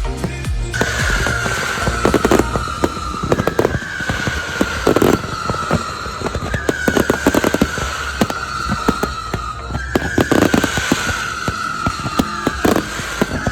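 Aerial fireworks going off in a dense run of bangs and crackles. Over them, a high tone falls slowly over about three seconds, then starts again at its top, four or five times.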